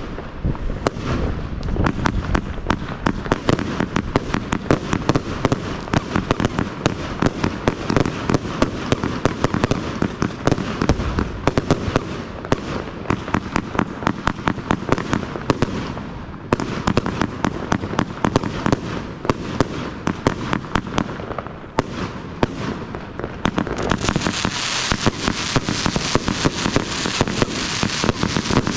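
J-Fireworks 'Space Cowboys' compound firework battery firing a rapid, continuous barrage of shots and bursts, many a second. It grows brighter and denser for the last few seconds.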